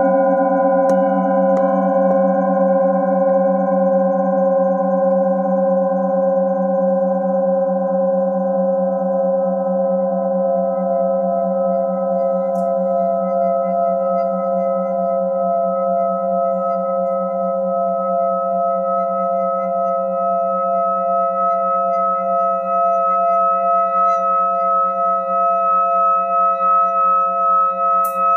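Hand-held metal singing bowl being rubbed around its rim with a wooden mallet, giving a sustained singing tone with a slow wavering beat that pulses louder near the end. Underneath, a deeper bowl's ring slowly fades away.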